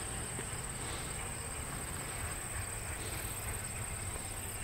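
Insects trilling in one steady, unbroken high-pitched tone, over a low rumble.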